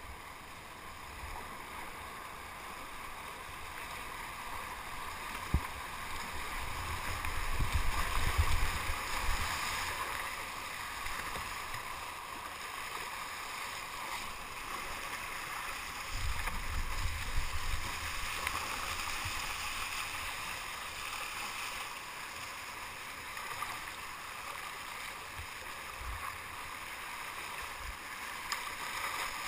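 Rapids rushing and splashing around a sea kayak being paddled through fast, turbulent water, with occasional paddle splashes. Low buffeting rumbles on the camera microphone swell up twice, about a quarter of the way in and again just past halfway.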